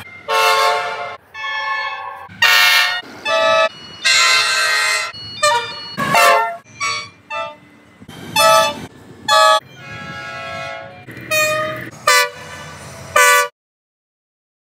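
Train horns sounding in a rapid series of about a dozen blasts of different lengths, each a chord of several steady tones, cut off abruptly one after another as clips change, sped up to 1.5 speed so the pitch is raised. A low rumble runs beneath the horns, and the blasts stop about a second before the end.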